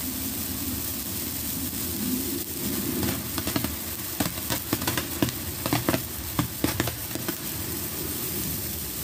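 Morning Glory stick sparkler burning with a steady hiss, with irregular small crackling pops for a few seconds through the middle.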